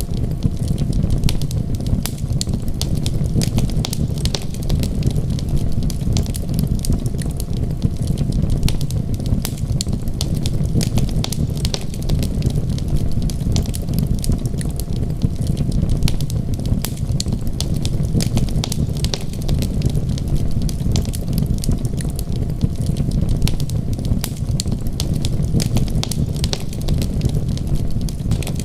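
Wood fire crackling, with frequent sharp pops and snaps over a steady low rumble.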